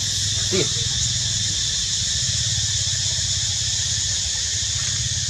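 Steady outdoor background: an even high hiss over a low rumble, with one short squeak about half a second in.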